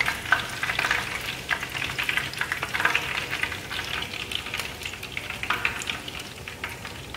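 Batter-coated chicken wing frying in hot oil in a frying pan: a dense, steady crackle and sizzle that grows fainter toward the end.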